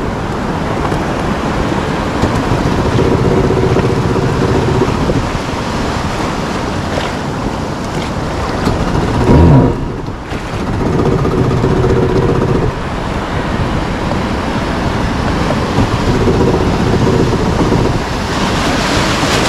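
Motor watercraft engine running under wind noise on the microphone and the wash of waves; the engine note swells and fades several times. A loud thump comes about halfway through.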